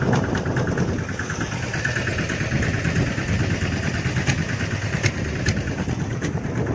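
A fishing boat's engine running steadily with a fast, even beat, and a few sharp clicks between about four and six seconds in.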